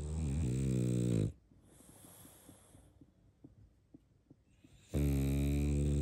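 Sleeping pug snoring: two loud, buzzy snores about four seconds apart, with a soft airy breath between them.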